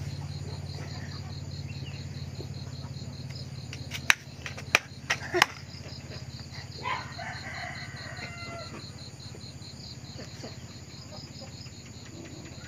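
An insect chirping steadily in high, even pulses, about four a second, over a low hum. A few sharp knocks come between about four and five and a half seconds in and are the loudest sounds. A short pitched call follows about a second later.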